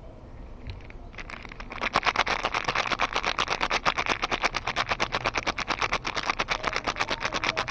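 Soap packaging being unwrapped, heard as a fast, even crackle of about ten clicks a second that starts about two seconds in and keeps going.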